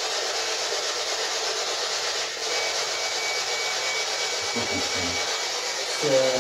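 Steady hiss of static. A faint thin whistle runs through the middle, and brief low murmuring fragments come about two-thirds of the way in and again near the end.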